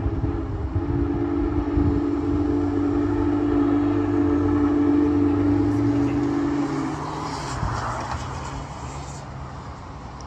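Union Pacific Big Boy 4014's steam whistle blowing one long chord over the rumble of the passing train, cutting off about seven seconds in. A brief hiss follows, and the train's rumble fades.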